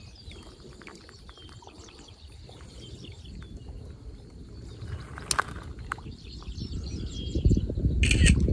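Outdoor ambience: faint bird chirps over a steady low rumble of wind on the microphone, with a sharp click about five seconds in. The rumble grows louder near the end.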